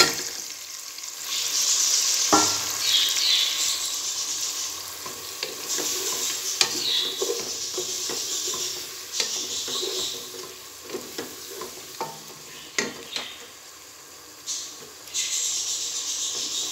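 Masala with freshly added tomatoes and green chillies sizzling in a nonstick pot while a wooden spatula stirs it. The hiss swells and fades as the mixture is turned, and the spatula knocks against the pot a few times.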